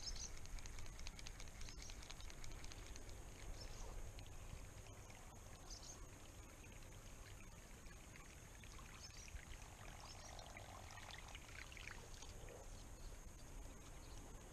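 Faint outdoor ambience beside a calm river: a steady high-pitched hiss, with scattered faint ticks and a few soft chirps.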